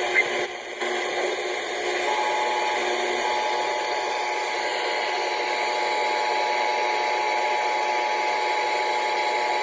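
Steady hiss and static of noisy FM radio reception. About two seconds in, the Emergency Alert System two-tone attention signal comes in faintly under the noise and holds steady, announcing a new alert.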